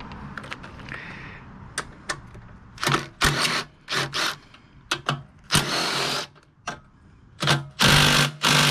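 A power driver spinning the cover bolts out of a Tecumseh 5.5 snowblower engine in a series of short bursts, starting about three seconds in, with the longest burst near the end. Lighter clicks of metal being handled come before the bursts.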